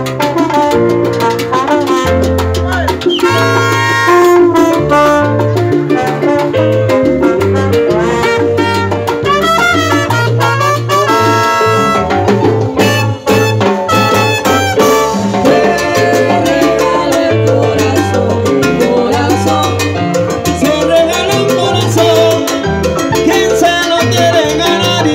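Live salsa band playing an instrumental passage: keyboard piano and electric bass over the band's rhythm, with a brass line.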